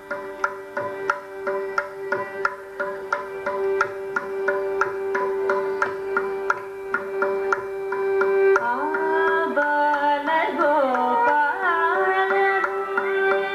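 Mridangam playing a rhythmic passage of sharp strokes over a steady drone. About two-thirds of the way through, a melodic line with sliding Carnatic ornaments (gamakas) comes in over the drumming.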